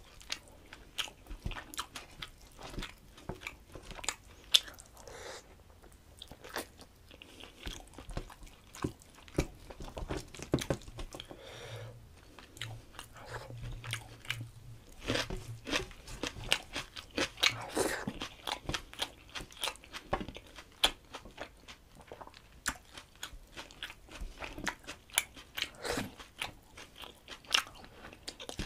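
Close-miked chewing of a mouthful of chicken curry and rice eaten by hand: wet mouth sounds with many short clicks and crunches.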